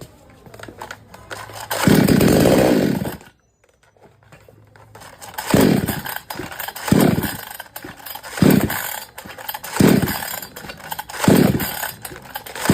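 58 cc two-stroke chainsaw engine being started after a new spark plug: it runs for just over a second and cuts out suddenly, then gives five short bursts about every second and a half, each dying away, without staying running. Starting and then stalling is the fault being diagnosed, not cured by the new plug.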